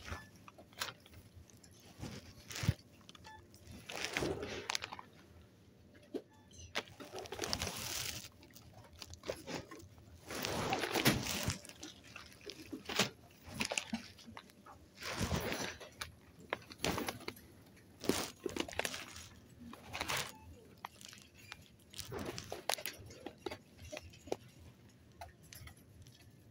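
Handling noise: irregular rustling and crinkling with scattered sharp clicks, from hands moving shrink-wrapped coffee-capsule boxes and the phone held close to the microphone.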